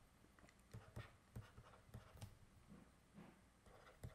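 Faint, irregular taps and scratches of a stylus writing on a tablet, over quiet room tone.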